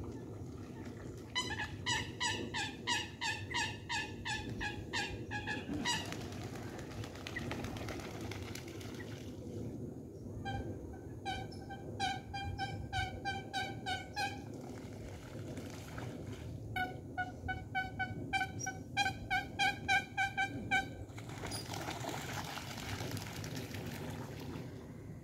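Eurasian coots calling in rapid runs of short, repeated notes, about three a second. There are three bouts of several seconds each.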